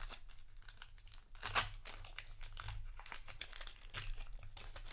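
Shadowverse Evolve trading-card booster pack wrapper being torn open and crinkled in the hands: a run of crackles, with a sharp louder tear about one and a half seconds in.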